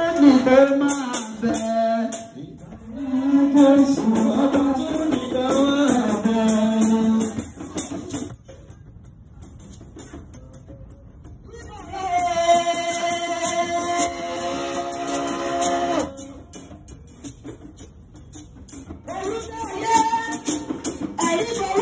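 A woman singing a praise chant into a microphone, with a rattling hand percussion instrument keeping a quick, steady beat. Her voice drops out for a few seconds around the middle while the rattle carries on, and the singing returns near the end.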